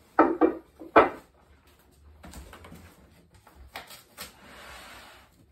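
A box of Resinite plastic food wrap being handled and its film pulled off the roll to cover a plate: two or three loud knocks in the first second, then rustling and crinkling of the plastic wrap with a few clicks.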